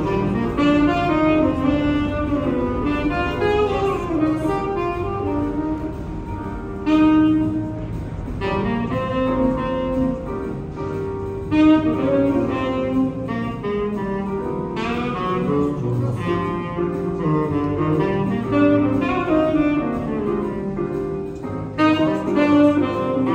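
Saxophone playing a jazz melody: quick runs of notes broken up by a few long held notes, with a lower bass part underneath.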